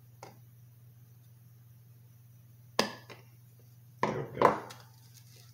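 Small hand tools clicking and knocking on a workbench: a faint click, a sharp click near the middle, then a short cluster of louder knocks and rattles about four seconds in.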